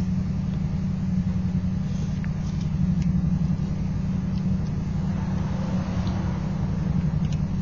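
Steady low hum with a few faint ticks.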